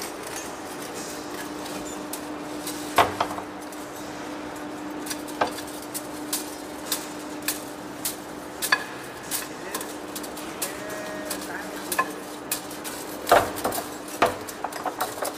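Large lathe turning a heavy steel workpiece, the cutting tool taking off the rusty outer skin: a steady hum from the machine with irregular sharp metallic clinks about once a second, loudest about three seconds in and near the end.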